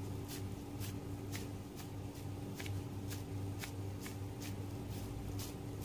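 Wet squelching and plastic-glove rustling as a gloved hand squeezes spiced minced beef onto a seekh kabab skewer, about two squeezes a second, over a steady low hum.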